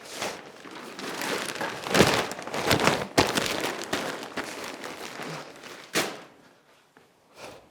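Plastic damp-proof membrane sheeting being handled and crumpled, rustling and crackling in uneven bursts, loudest around two to three seconds in, with a sharp crackle about six seconds in.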